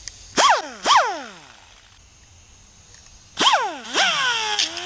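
Pneumatic angle grinder with a small disc, triggered in short blips. Each blip whines up and winds down in falling pitch, twice about half a second in and then in quicker succession from about three and a half seconds. Near the end the whine drops to a lower, steadier pitch as the disc is put to a small metal sleeve to grind saw teeth into it.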